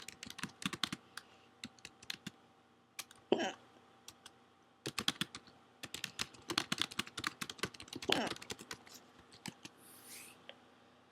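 Computer keyboard typing in irregular bursts of quick clicks, broken by two short hiccups about three and eight seconds in.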